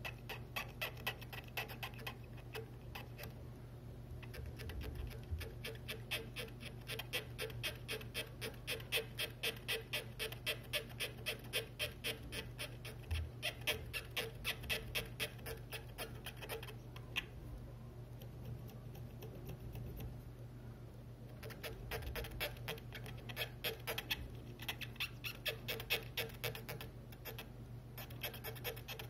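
Pointed wooden stick scraping the colour filter array off a Canon 350D image sensor: quick, rhythmic scratching strokes, several a second, with a few short pauses.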